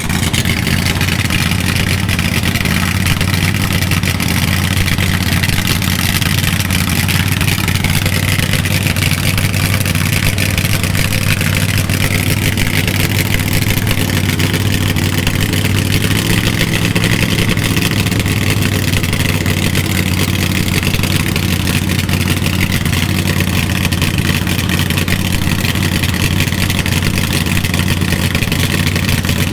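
Supercharged Hemi V8 of a rear-engine Dodge Dart funny car running steadily and loud, with no big revs.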